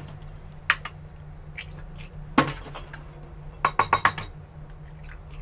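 Chicken eggs being cracked one after another: a few sharp taps of shell against a hard edge, with a quick run of clicks and clinks about two-thirds of the way through. A faint steady hum lies underneath.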